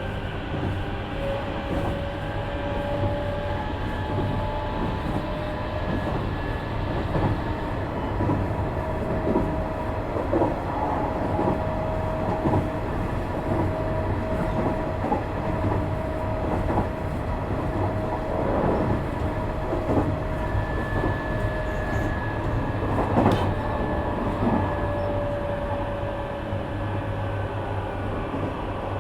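Nishitetsu 3000 series electric commuter train heard from inside a car while under way. A steady whine from the motors and gears rises a little in pitch over the first several seconds, holds, then eases down near the end, over running rumble and wheel clicks on the rail joints.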